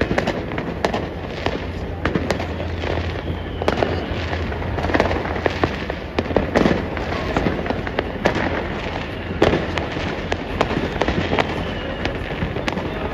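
Many fireworks going off at once: a dense, unbroken run of bangs and crackles from rockets and firecrackers, with now and then a falling whistle.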